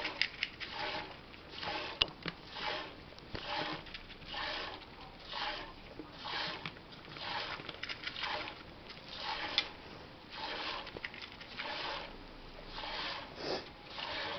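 A goat being milked by hand: milk squirts hissing into a pail, one short squirt with each squeeze of the teat, about three every two seconds in a steady rhythm.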